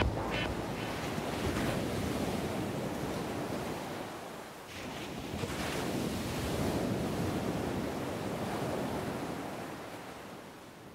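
Ocean surf: waves breaking and washing in, a steady rushing that swells and eases, dipping briefly about four and a half seconds in and fading near the end.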